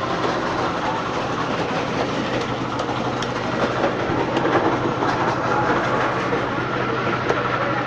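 Busy fish market din: a steady mechanical hum under constant clatter and small knocks.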